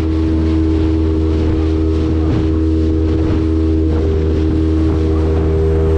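Small boat's outboard motor running at a steady cruising speed, a constant low drone with a steady higher hum above it.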